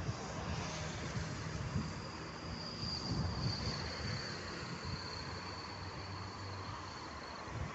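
Wind buffeting the microphone in low gusts, with a high, steady insect trill that comes in about two and a half seconds in and fades out near the end.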